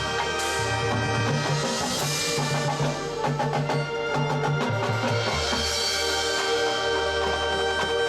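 Marching band playing: sustained chords over a stepping bass line, with a run of sharp percussion strikes in the middle.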